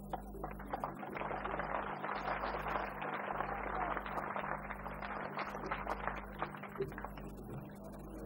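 Crowd applause: a dense patter of many hands clapping that swells in about a second in and dies away near the end. A steady electrical hum from the old videotape recording runs underneath.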